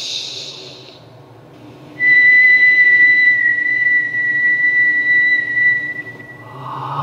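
A hiss fades out, then a single steady high whistle tone is held for about four seconds and stops. Voices singing in chorus come in near the end.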